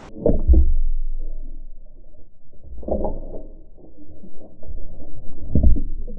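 Sea water heard through a submerged action camera: muffled, low sloshing and bubbling as a snapper is lowered by hand into the water and released. It swells louder a few times, about a third of a second in, near three seconds and again near the end.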